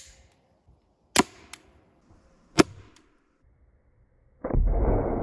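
Suppressed .22 LR pistol firing CCI Quiet-22 subsonic lead round nose rounds: three short, sharp pops, a little over a second apart. From about four and a half seconds a muffled rushing noise starts and slowly fades.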